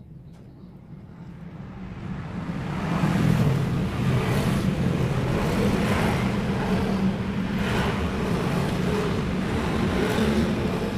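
A motor vehicle's engine running close by, swelling up over the first few seconds, holding steady, then beginning to fade near the end.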